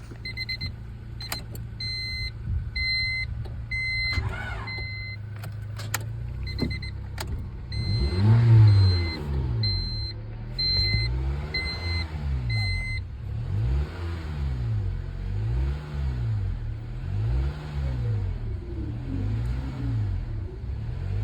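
Honda Civic LS-VTEC engine running after an oil pan and oil filter change: it hums steadily at first while a chime beeps at an even pace, then about eight seconds in it is revved up and down over and over.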